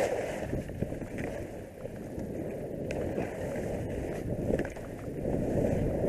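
Skis sliding and scraping over hard-packed snow on a downhill run, heard from a camera worn by the skier, with a few short sharp clicks.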